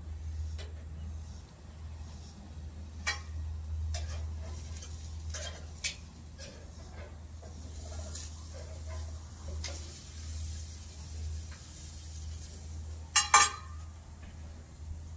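Metal clicks and clatters of a Weber gas grill being tended: a few light knocks of tongs on the grate and lid, then a loud double clack near the end, over a steady low rumble.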